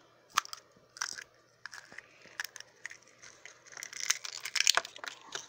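A small plastic Hatchimals CollEGGtibles toy egg being cracked open by hand: a scatter of small crunching, crackling clicks from the shell, busiest about four seconds in.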